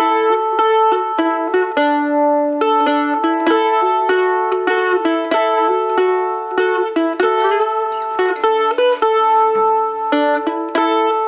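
Background music: a bright plucked-string tune with quick repeated notes.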